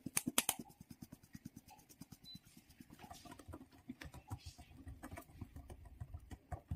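Metal mesh sieve shaken over a ceramic bowl, sifting flour with rapid light tapping. About halfway through, a wire whisk starts stirring the flour into the egg batter, with quick soft scraping clicks against the bowl.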